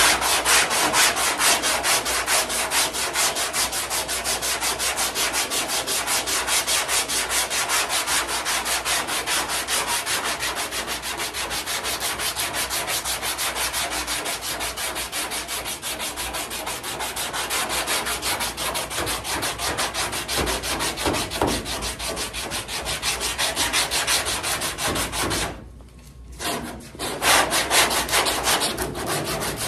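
Hand block sanding of thin body filler on a car body panel: quick, even back-and-forth rasping strokes of sandpaper, with a short pause near the end.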